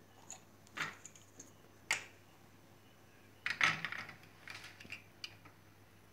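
Plastic parts of a pull-string hand food chopper being handled and fitted together: scattered light clicks and knocks, with a busier cluster of clicks about halfway through.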